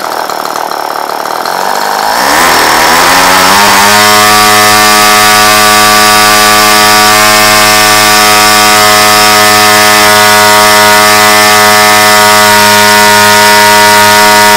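A Tartan 22 cc two-stroke engine converted to spark ignition, driving a propeller on a test stand. It starts at a lower speed, revs up over about two seconds as the throttle is opened, then runs steadily at high speed.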